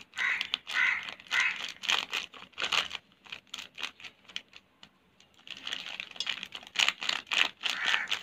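A foil spice packet crinkling and being tapped as powder is shaken out of it: a run of quick, sharp rustles and taps, a pause of about two seconds in the middle, then more crinkling.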